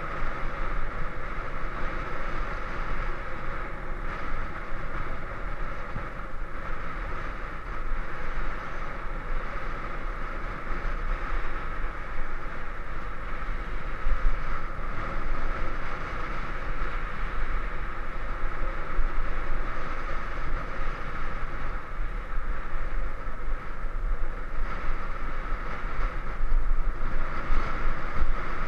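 Steady wind rush buffeting the microphone of a camera riding on a moving bicycle, mixed with the hum of tyres rolling on a concrete road.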